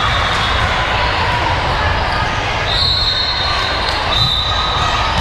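Ball bouncing amid constant chatter in a large hall, with two long steady high tones about halfway through and near the end.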